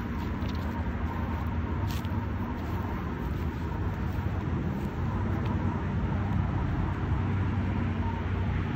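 A steady low rumble with a constant hum and no speech, mechanical in character, with a few faint clicks.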